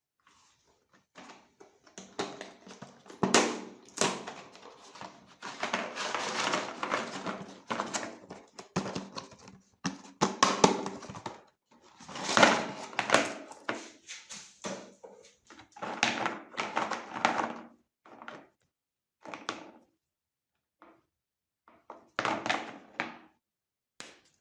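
Cookies being crushed in a meat grinder: irregular bursts of crunching and cracking with a few sharp knocks, stopping and starting with short pauses in between.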